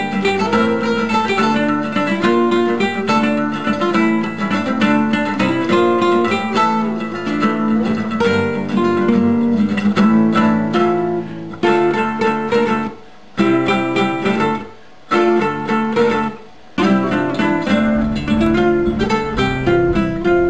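Background music of fast plucked guitar, dropping out briefly three times in the second half.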